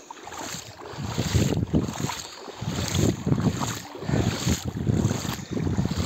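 Wind buffeting the microphone in irregular gusts, rumbling and swelling every second or so over a steady hiss of wind and water.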